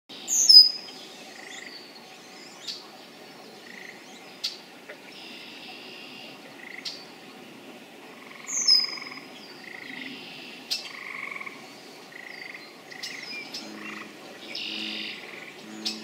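Spring dusk chorus: a red-winged blackbird singing, loudest near the start and again about halfway through, over frogs calling. Near the end a frog adds short low croaks, several in a row.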